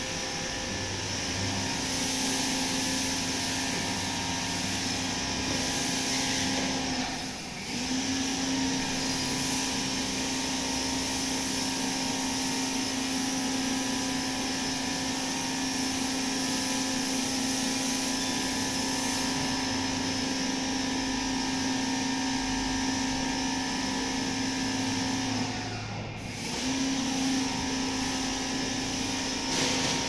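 Steady mechanical drone with a constant low hum, dropping away briefly about seven seconds in and again near the end before resuming.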